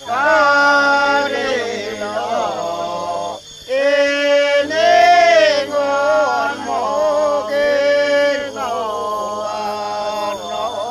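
Background music: a voice singing long, held, chant-like notes that waver slightly, over a steady low drone.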